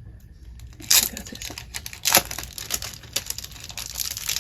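Packaging being handled and unwrapped, crinkling and rustling, with two sharp louder crackles about a second in and just after two seconds, then continuous fine crinkling.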